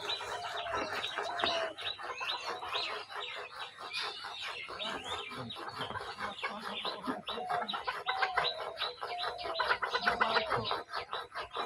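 Birds calling in the background: many short chirps overlapping throughout, with a few lower, drawn-out calls that fall slightly in pitch.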